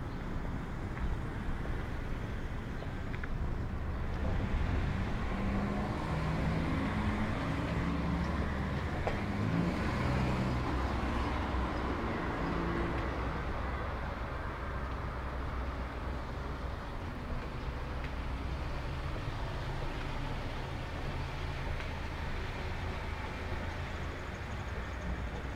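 Motor vehicle traffic on a street: a steady low engine and tyre rumble, with one engine note that shifts up and down in pitch between about five and thirteen seconds in as a vehicle passes.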